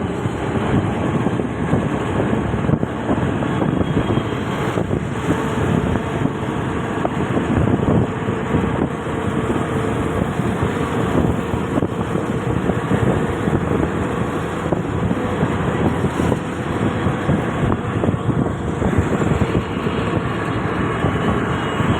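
Steady loud rumble and rattle of a moving train.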